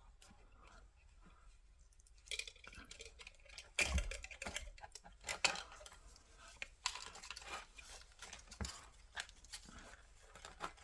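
Hands working at wiring and parts in a radio chassis: irregular small clicks, scrapes and crackles, starting about two seconds in, the loudest a knock about four seconds in.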